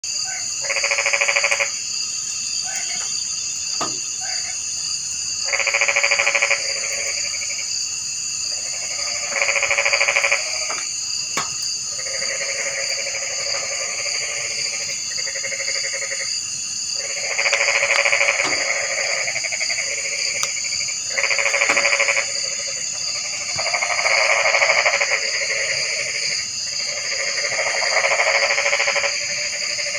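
Frogs calling: loud calls about a second or two long that come again every few seconds, over a steady high-pitched chorus.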